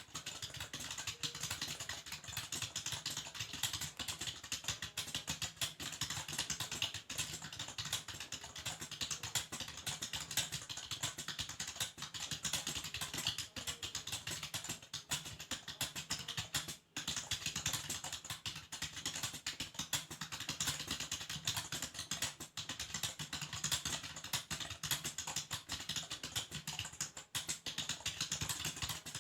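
Fast continuous typing on a Logitech K480 keyboard, its keys worn by seven years of use, a dense run of key clicks with one brief pause a little past halfway.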